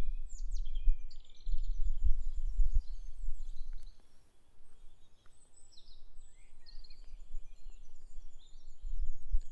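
Several songbirds chirping and trilling with short high calls, over a low rumble that comes and goes and is strongest in the first few seconds and again near the end.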